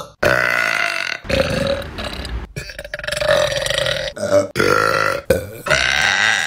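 A string of loud burps from several different women, cut back to back, each lasting about a second, with abrupt changes between one burp and the next.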